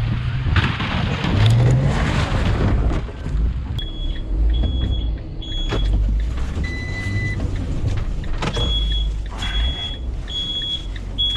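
Delivery van's engine revving for a few seconds, then running low while short, high electronic warning beeps from the van sound in two runs of three or four beeps.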